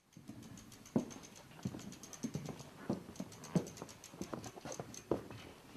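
Bicycle being wheeled and handled, its freewheel ticking rapidly, with irregular footsteps and knocks.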